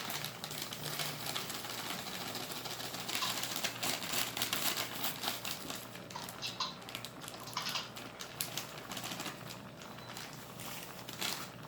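Rapid, irregular clicking and crackling from food cooking in a pan on the stove.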